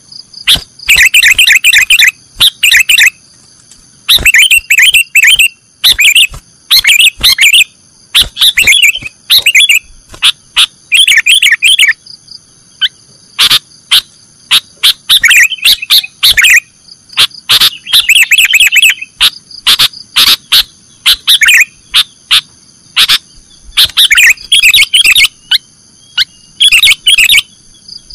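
Sooty-headed bulbul (kutilang) singing in repeated bursts of quick, chattering chirps, each burst a second or so long with short pauses between, over a steady high-pitched drone.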